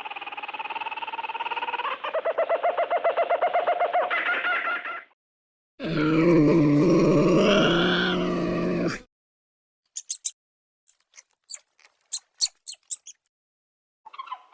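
A series of animal calls. First comes a pitched call that breaks into a fast stutter, then a loud, lower growling call, then a run of sharp, high clicks or chirps.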